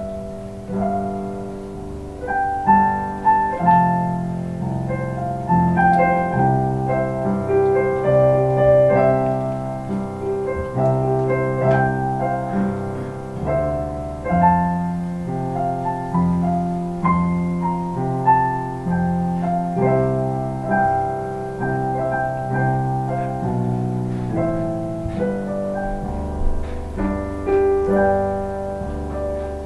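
Keyboard played in a piano voice: slow chords with held notes, changing every second or two.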